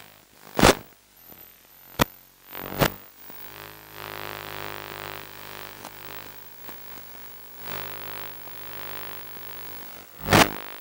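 Remote-control tank driving, heard through its onboard FPV camera's audio: a steady electrical hum and hiss, broken by sharp crackles, three in the first few seconds and a loud one near the end.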